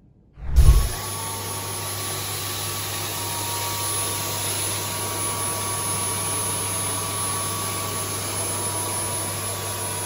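Dyson V10 Absolute cordless stick vacuum with its soft-roller hard-floor head switching on about half a second in with a low thump. It then runs steadily, a rushing hiss with a thin steady whine, as it sweeps debris off a wooden floor.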